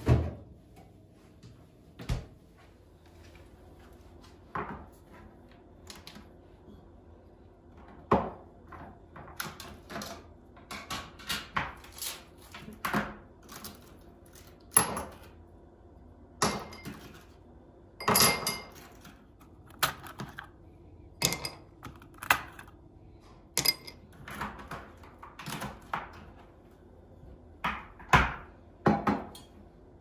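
Ice cubes popped out of a plastic ice-cube tray and dropped one at a time into a glass tumbler, each landing with a sharp clink, about twenty at an irregular pace of roughly one a second. A single thump at the very start.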